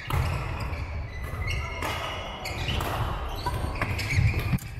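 Busy badminton-hall din: sharp racket hits and footfalls on the wooden court floor from several courts, with short high shoe squeaks and distant voices, all echoing in the big hall.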